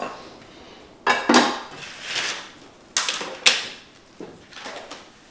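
Kitchen things being moved and set down on a worktop: a few sudden knocks and clatters, the loudest about a second in and twice around three seconds, with lighter ones between.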